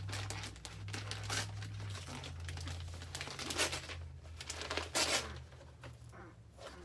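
Paper and plastic packaging crinkling and tearing in a run of short rustles and rips as a present is unwrapped, over a low steady hum.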